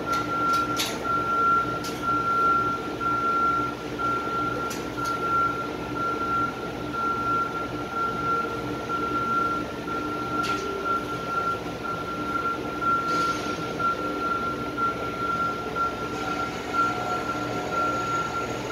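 Welding arc crackling and hissing steadily inside a steel tank, with a steady high whine running underneath and a few short clicks.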